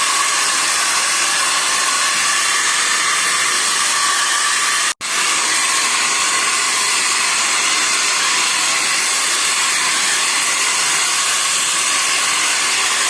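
Steady rushing air noise from duct-cleaning equipment running continuously, cutting out for an instant about five seconds in.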